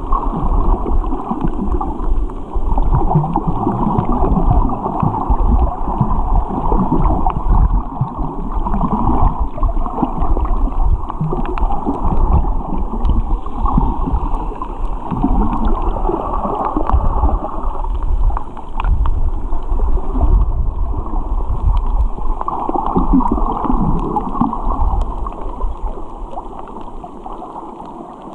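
Muffled water noise recorded underwater: a steady gurgling churn with a low rumble and a few faint clicks.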